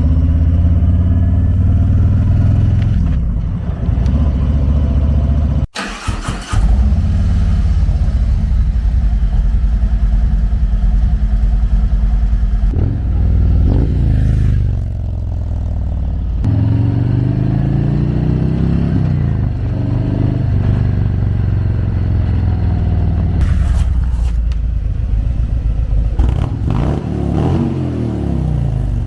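Harley-Davidson Street Glide's V-twin running through Screamin' Eagle slip-on mufflers, accelerating with several rising sweeps in pitch as it pulls through the gears and easing off in between. The sound breaks off abruptly about six seconds in and picks up again.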